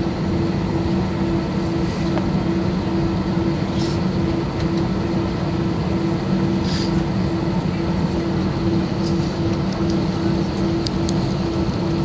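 Airbus A320 passenger cabin on the ground: the jet engines running steadily at low power, heard as an even rumble with a low hum and a second, regularly pulsing hum over it.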